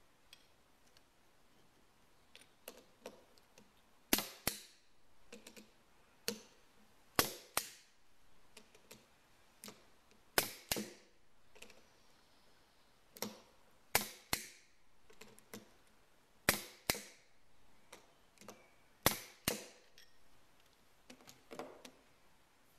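Sharp metal clicks of hand tools working steel power-chuck parts, mostly in pairs, about every three seconds, with fainter taps in between.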